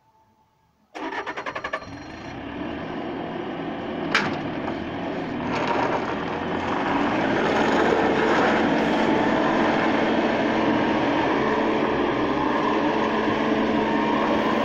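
Skid-steer loader's engine starting about a second in, a fast pulsing cranking that catches, then running steadily and growing louder as the loader moves off. A single sharp click about four seconds in.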